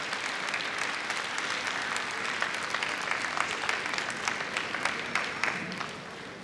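Large arena crowd applauding, the clapping thinning out and dying down near the end.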